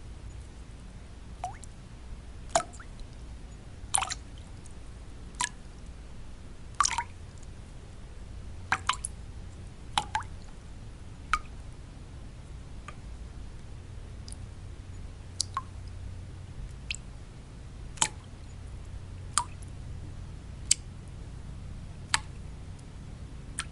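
Water drops falling one by one at irregular intervals, roughly one every one to two seconds, each a short plink that drops in pitch, over a steady low white-noise rumble.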